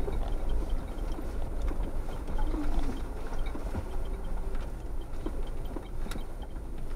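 Off-road vehicle driving slowly over a rough gravel trail, heard from inside the vehicle: a steady low rumble of engine and tyres with scattered rattles and small knocks.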